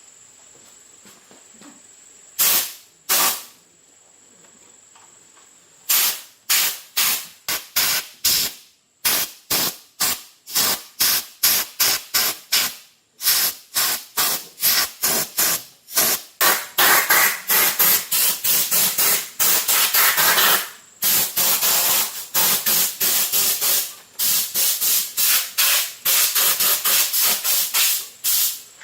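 Repeated short hissing sprays, a couple at first, then about two a second, running together into almost continuous spraying with brief breaks in the second half.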